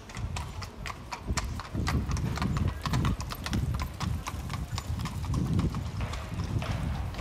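Hooves of Viennese Fiaker carriage horses clip-clopping on the street, many quick sharp strikes in an uneven run, over a low rumble.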